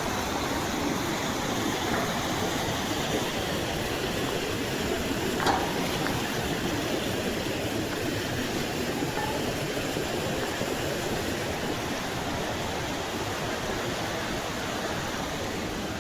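Waterfall rushing: a steady, even roar of falling water, with one brief knock about five seconds in.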